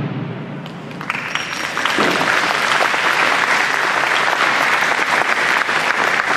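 The last taiko drum strokes die away in the hall's echo, and about a second in the audience breaks into sustained applause.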